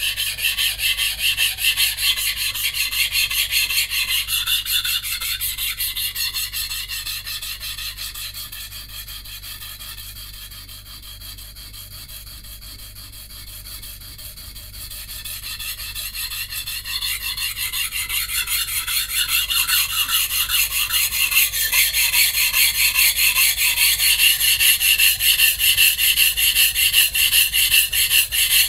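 Santoku blade being stroked back and forth on a coarse 180-grit whetstone in rapid, even, gritty strokes of steel on stone, grinding the chipped edge back. The strokes grow quieter for a few seconds in the middle, then louder again.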